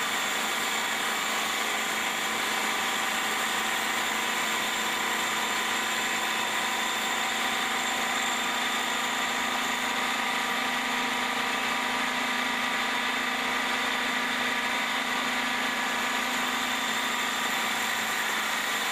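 Automatic wood-turning copy lathe running steadily: an even machine drone with several constant high tones.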